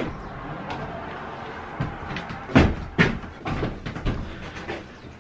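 A few knocks and clunks: a click at the start, two loud sharp knocks about two and a half and three seconds in, then several lighter clicks.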